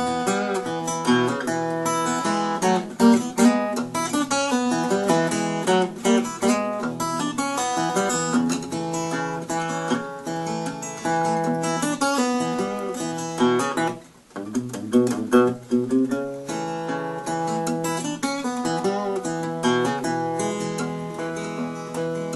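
Acoustic guitar fingerpicked in ragtime blues style, a steady thumbed bass under a picked melody, as an instrumental break between sung verses; the playing stops for a moment about two-thirds through, then goes on.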